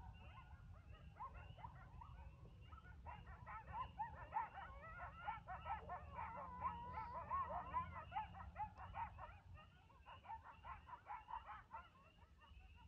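A group of coyotes yipping and howling together, many voices overlapping. The chorus swells about three seconds in and dies down near the end.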